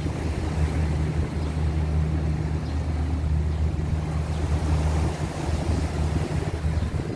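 Steady low drone of a boat engine, with an even hiss of wind and water over it.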